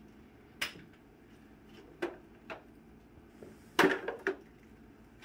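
Scattered hard plastic clicks and knocks from a Rainbow vacuum's wand and attachments as the power nozzle is taken off and the wand is brought to the Aquamate shampooer head. About six sharp clicks, the loudest a quick double knock about four seconds in.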